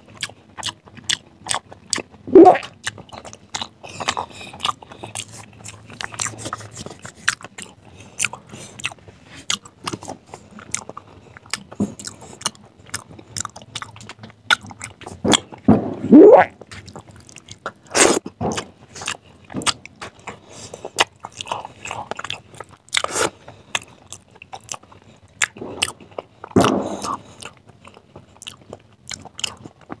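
Close-miked wet chewing and lip-smacking of curry-soaked rice and boiled egg eaten by hand, made of many sharp smacking clicks. A few louder, drawn-out mouth sounds come about two seconds in, halfway through and near the end.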